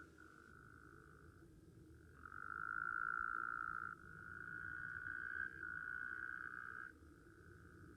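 Frogs calling: a continuous trill held at one steady pitch. It grows louder about two seconds in, breaks briefly twice, and drops back about a second before the end.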